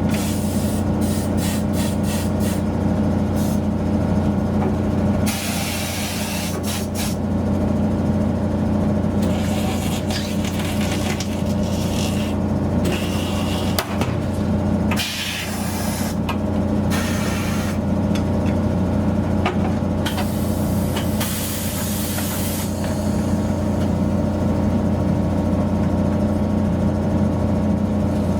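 A steady mechanical hum, with several hisses of compressed air of a second or two each and a few sharp clicks, as in a tyre shop at work.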